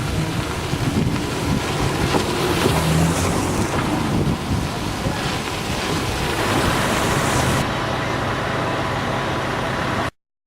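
Wind buffeting the microphone outdoors by open water, a loud, uneven rumble and hiss. From about six and a half seconds in, a steady low engine hum runs under it. The sound cuts off abruptly shortly before the end.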